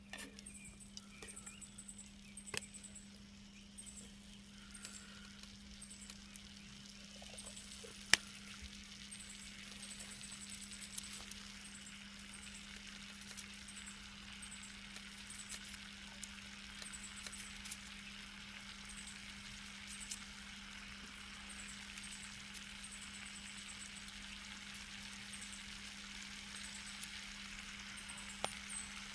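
Food sizzling on a camp grill, the hiss building up after a few seconds, with scattered sharp clicks and pops.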